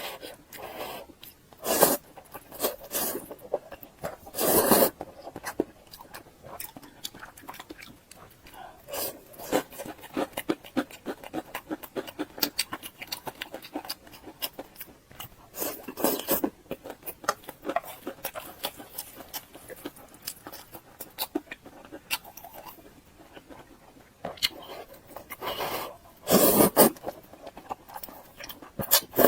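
Close-up eating mouth sounds: wet chewing and lip smacking, a steady stream of small clicks, broken four times by a louder breathy noise lasting about a second.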